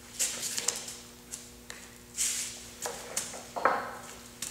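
Gloved hands pressing and squaring up the edges of a Clock Spring composite coil wrapped on a pipe: scattered short rustles and scrapes, with one brief squeak near the end. A faint steady hum lies underneath.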